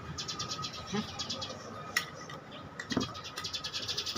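Handling noise of rubber welding cables and a cardboard box, with a few short knocks about a second apart, while an animal calls in the background.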